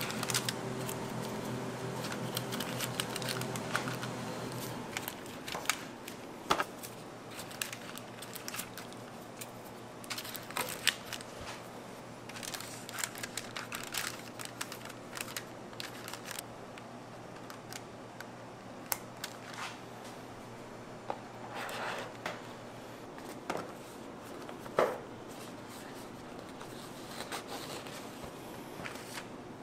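Irregular light clicks and crinkling, the sound of caramel wrappers being handled, with a few sharper taps along the way.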